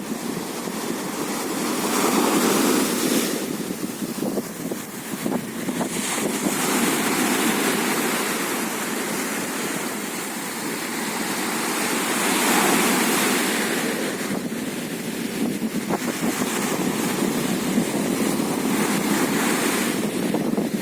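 Sea waves washing onto the shore in a continuous rush that swells and eases, loudest twice, about two seconds in and again around twelve seconds, with wind in the background.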